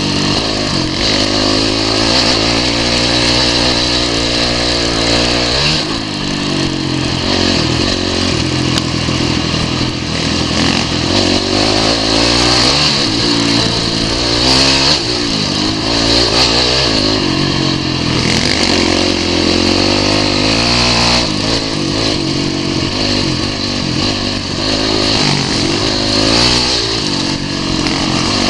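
Dirt-bike engine running under load on a rough trail, its pitch climbing and dropping again and again as the throttle opens and closes.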